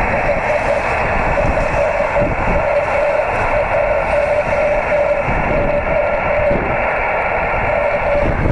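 Transceiver speaker giving steady receiver hiss with a rough Morse-code tone keyed on and off through it: a 10 GHz CW signal arriving by rain scatter. Wind rumbles on the microphone underneath.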